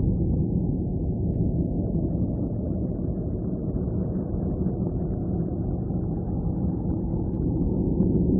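A deep, steady rumbling drone with a few faint held tones in it, the sound presented as Voyager's recording of Saturn's rings.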